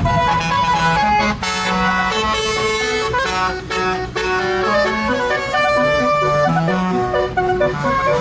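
A tour bus's musical basuri ('telolet') air horn playing a tune, a run of held notes that change pitch every fraction of a second, several sounding together.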